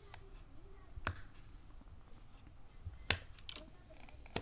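Spigen Tough Armor XP case clicking as an iPhone 11 is pressed into it, the case's edges snapping over the phone: four short, sharp clicks, one about a second in, two close together around three seconds, and one at the end.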